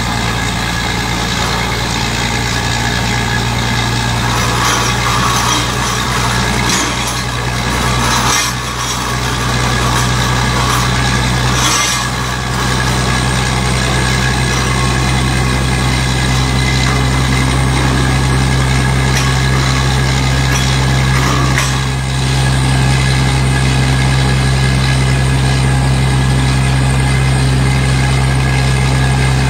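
Truck-mounted water well drilling rig running during a test drill, its engine and compressor giving a loud, steady drone with a few brief dips in level.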